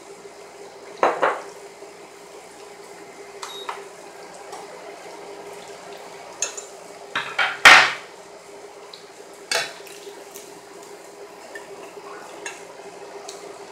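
Metal spoon and fork clinking and scraping against a metal kadai as fried chicken pieces are lifted out of it: a handful of sharp, spaced-out clanks, the loudest about eight seconds in, over a faint steady hum.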